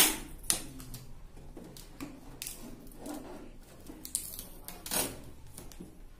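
Clear plastic seal tape being peeled off the edges of a metal chocolate tin and handled: scattered crinkling and rustling, with a sharp click right at the start.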